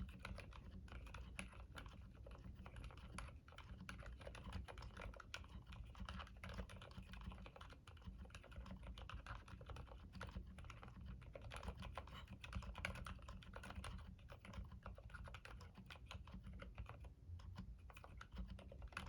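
Continuous typing on a CIY X79 mechanical keyboard with Gateron Silent Black linear switches, heavy 100 g springs on the letter keys and OEM-profile keycaps: a quick, irregular run of faint, muffled keystrokes.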